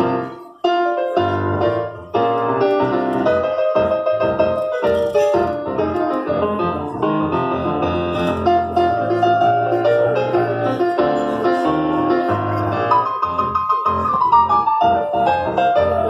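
Korg stage keyboard played solo with a piano voice: melody and chords over a bass line, with a brief pause just under a second in before the playing picks up again.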